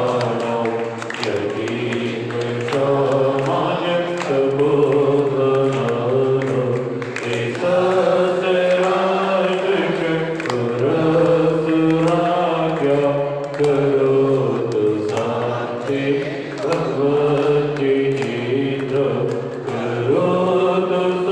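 Voices chanting a Jain devotional mantra in a sung melody, continuous and loud, with steady low tones held underneath.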